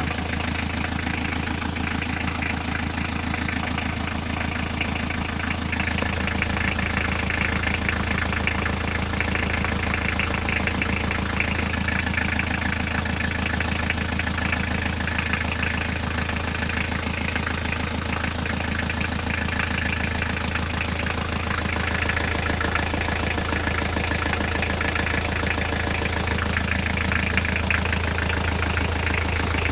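Toyota C1 car engine idling steadily with a fast, even knocking tick running through it: an unidentified knock that the owner is trying to trace.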